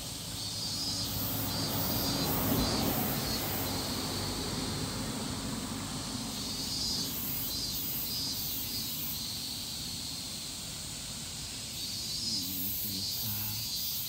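Cicadas calling in three bouts of a few seconds each. Each bout is a run of pulsing phrases at about two a second, with short pauses between bouts.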